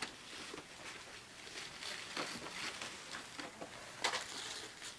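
Gift wrapping paper rustling and crinkling as presents are handled, with scattered small knocks and one louder click about four seconds in.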